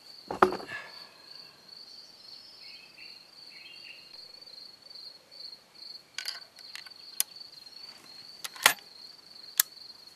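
Short metallic clicks and knocks of a hunting combination gun being loaded, a few scattered sharp clicks with the loudest near the end. Insects trill steadily underneath.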